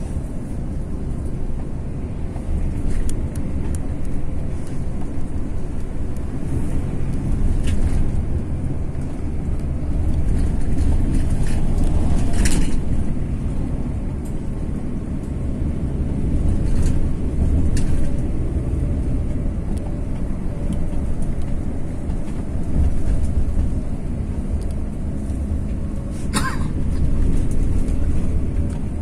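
Hino-chassis coach bus on the move: a steady low rumble of engine and road noise, with a few brief knocks or rattles, the clearest about twelve seconds in and near the end.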